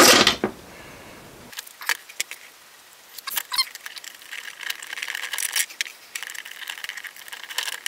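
Handling noise from 3D-printed plastic watch-frame parts and steel pins being fitted together: scattered light clicks and taps, with stretches of scraping and rubbing about halfway through and near the end.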